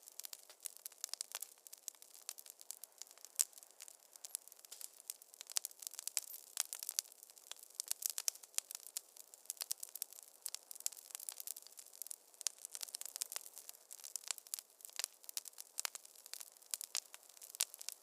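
Wood fire crackling in a fireplace: a dense, irregular run of sharp pops and snaps over a faint hiss.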